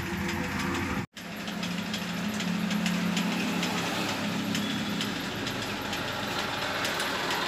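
Steady hum of running machinery with light ticking, with a low steady tone in the first few seconds; the sound cuts out completely for an instant about a second in.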